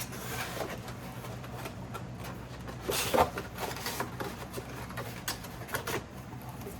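Packaging and small plastic sewing-machine parts being handled: rustling and light clicks, busiest about three seconds in, over a steady low hum.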